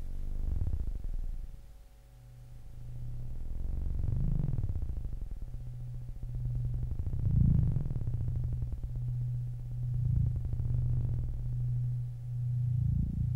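Electronic film score: a low, steady synthesizer drone with slow swells that rise and fade about every three seconds.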